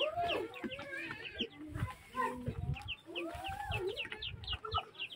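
Domestic chickens clucking and calling, with a run of quick, high chirps several times a second.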